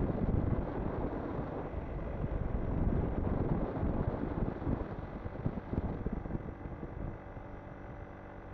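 Wind rushing and buffeting over the microphone of a moving 50cc Arora moped, with the engine running underneath. The rush eases about seven seconds in, leaving a steadier, quieter hum.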